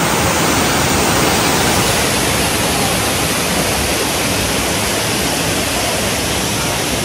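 Steady loud rush of water from a walk-through vortex tunnel, a curtain of water swirling around the walkway.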